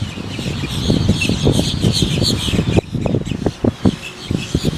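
A large flock of birds calling and chattering together, over a low, uneven rumble.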